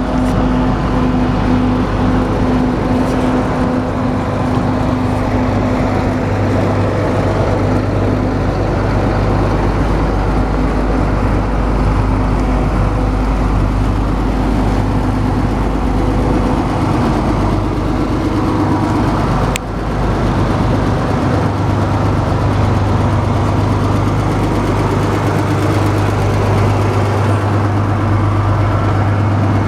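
Diesel engine of harvest machinery, most likely a combine harvesting soybeans, running steadily under load with a constant low drone. A single sharp click comes about twenty seconds in.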